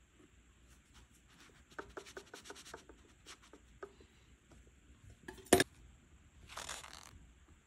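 Metal tweezer tips tapping on pressed eyeshadow powder in a quick run of about ten light clicks, then one sharp click about five and a half seconds in. Near the end, a short rustling rub as a sheet of paper is pressed over the palette.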